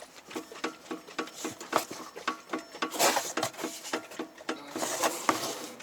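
Repeated dull knocking from the worn lower ball joint of a Skoda Octavia III's front anti-roll bar link as the suspension is rocked, several irregular knocks a second. A brief hiss comes in twice, about three and five seconds in.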